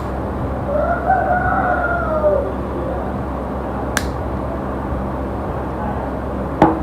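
A rooster crowing once, one long call that rises and then falls. Two sharp clicks sound over a steady hum, one about four seconds in and a louder one near the end.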